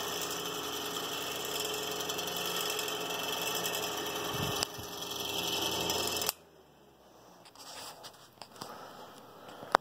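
Old Westinghouse electric fan running with a steady hum and rattle, "real rattly" but still working. The sound cuts off suddenly about six seconds in, leaving only faint handling sounds.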